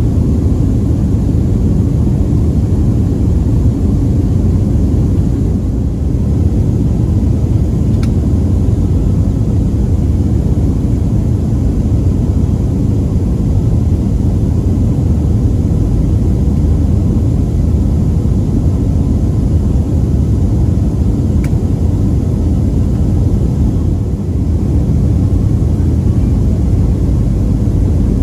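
Steady low cabin rumble of a Boeing 737-400 on descent, heard inside the cabin from over the wing: the CFM56-3 engines and the airflow over the fuselage. A couple of faint clicks can be heard along the way.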